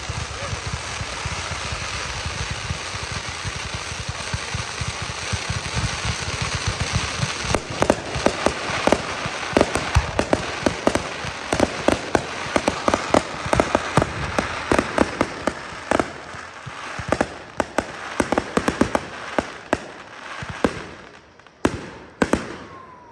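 Fireworks display: a dense, continuous crackling for the first several seconds, then many sharp bangs in quick succession from about seven seconds in, thinning out near the end.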